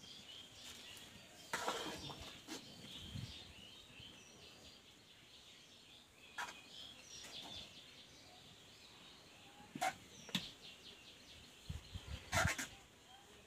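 Faint birds chirping, with a few short clinks and scrapes of a metal ladle stirring hot milk in a large aluminium pan.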